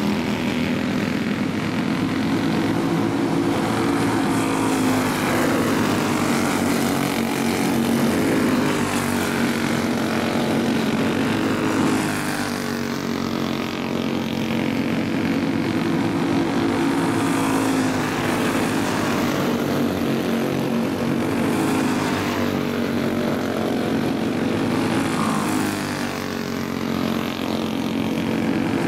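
Several racing go-kart engines running hard together, their pitch rising and falling in waves as the pack circles a dirt oval.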